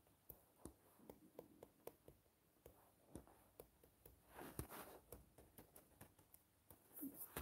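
Near silence: quiet room tone with faint clicks about twice a second, and a soft rustle with one sharper tap about halfway through.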